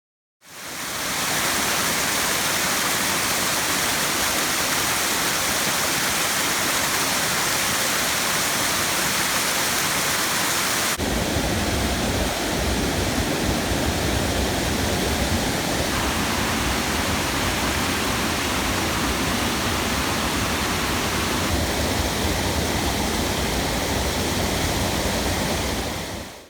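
Waterfall: steady rushing water that fades in at the start. About eleven seconds in, a cut brings a deeper-sounding rush with more low rumble.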